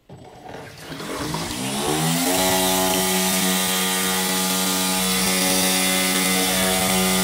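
12S brushless diaphragm water pump powered at 50 V starting up. Its whine rises in pitch over about two seconds, then runs steady as the pump pushes water out through its outlet hose.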